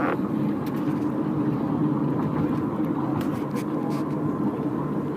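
Steady road and engine noise inside a moving car, with a few faint clicks.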